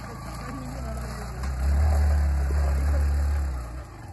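Motorcycle engine running close by, a low rumble that grows louder about a second and a half in and falls away near the end.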